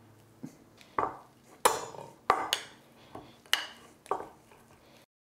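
Metal fork clinking and scraping against a glass mixing bowl while mashing chopped herbs into softened butter, about seven sharp clinks at an uneven pace.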